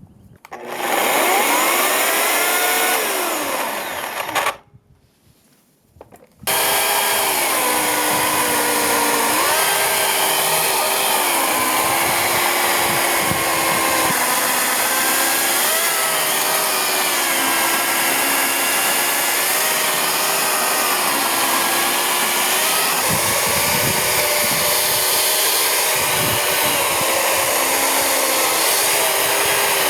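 Chainsaw running: it revs up and down for a few seconds and stops. After a short pause it runs again steadily, its pitch dipping and rising as it cuts into oak firewood.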